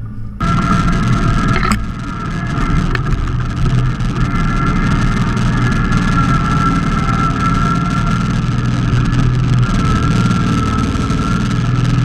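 Simplicity Legacy XL 4x4 garden tractor's engine running steadily, with a steady high whine over the engine note. It comes in abruptly about half a second in, and there is a short click near two seconds in.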